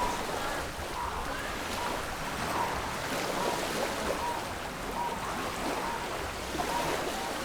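Steady rushing of running water, with a short, high, flat note repeating roughly once a second over it.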